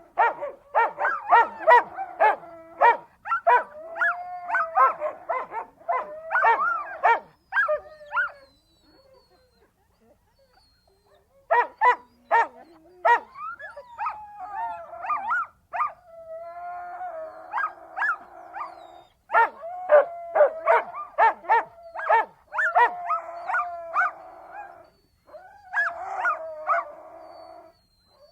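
Siberian husky vocalising in bursts: quick runs of sharp barks and yips mixed with drawn-out, bending howl-like 'talking' calls. It breaks off for about three seconds about a third of the way in, then starts up again.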